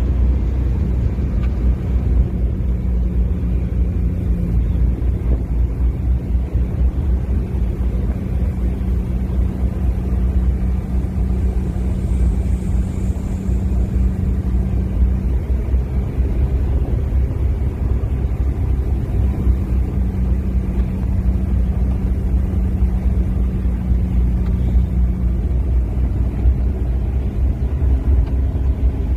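Steady low rumble with a constant engine-like hum, like a motor vehicle running.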